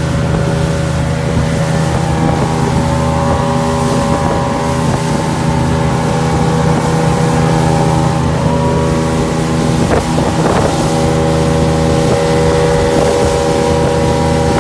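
25-foot center-console boat running at full throttle: a steady engine drone, with wind buffeting the microphone. A brief thump about ten seconds in.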